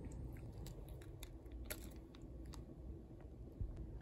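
Faint chewing of a crisp snack biscuit, with a few small scattered crunches.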